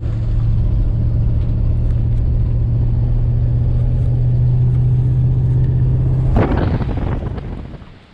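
Vehicle engine and tyre noise heard from inside the cab while driving, a steady low drone. About six and a half seconds in there is a sharp click, and the sound then fades out.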